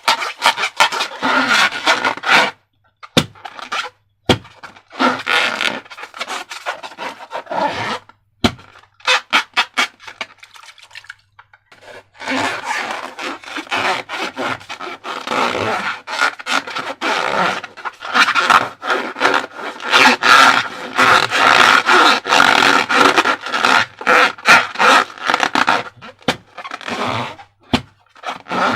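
Slime being squeezed and worked by hand, making wet crackling and squelching in bursts. There is a short pause about three seconds in and a longer one about eight seconds in.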